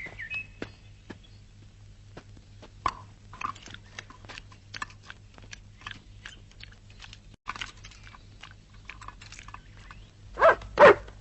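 Dog chewing and biting food: many short, irregular chewing clicks, with two louder sounds near the end.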